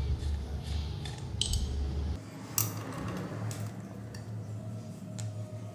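Scattered metallic clinks and clicks of a 17 mm wrench on the bolts that hold a motorcycle's rear sprocket to the wheel hub, as the bolts are loosened.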